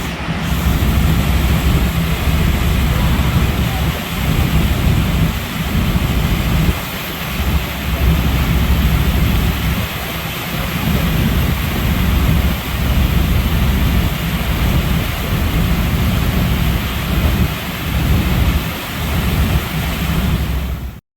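Loud low rumble that swells and drops in irregular gusts, typical of wind buffeting the microphone.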